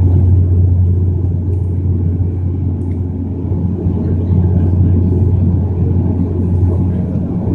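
Cabin drone of a Bombardier Q400 Dash 8 in flight: its Pratt & Whitney PW150A turboprops and six-bladed propellers give a steady deep hum over a rushing noise, heard from inside the passenger cabin.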